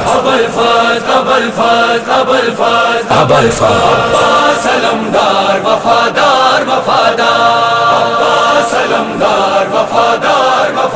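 Voices chanting a noha, a Shia mourning lament, with lines held on long notes.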